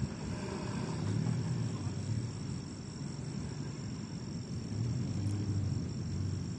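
Crickets trilling steadily at a high pitch, over a low background rumble.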